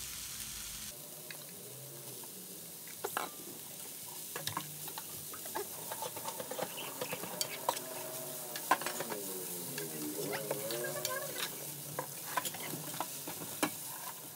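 Rice, chicken and kimchi sizzling in a frying pan while a silicone spatula stirs and turns them, with many sharp clicks and scrapes of the spatula against the pan. The rice has just gone in on top of the cooked chicken and kimchi and is being mixed through.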